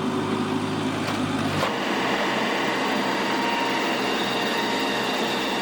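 Steady mechanical noise of machinery running, with a sharp knock about one and a half seconds in, where a low hum drops out.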